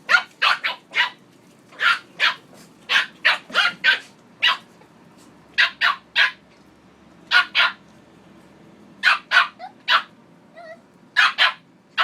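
Dog barking in quick bursts of two to five sharp barks with short pauses between, and a brief whine about ten seconds in.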